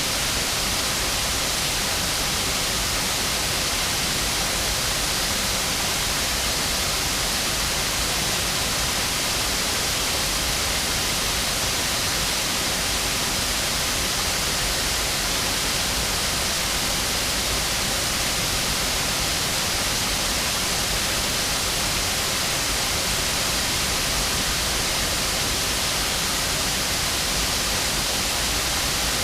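Water pouring over Stroudwater Falls: a steady, even rush that does not change.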